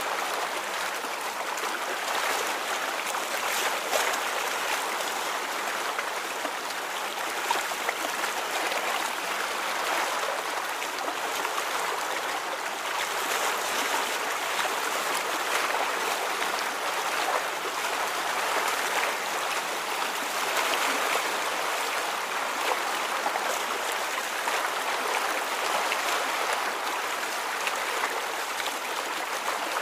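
Rippling water, a steady lapping and trickling with many small irregular splashes.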